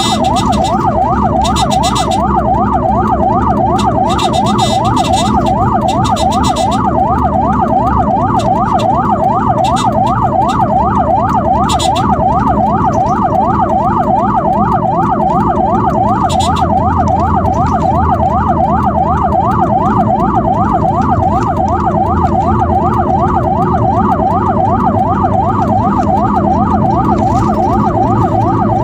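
Ambulance siren on a fast yelp, sweeping up and down about three times a second without a break, over steady engine and road noise. A few short hissy bursts come through, mostly in the first several seconds.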